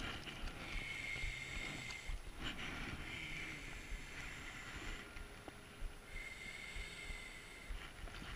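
Spinning reel whirring in three spells of a second or more each, the last the longest, while a trout is played on the line, over a low wash of river water.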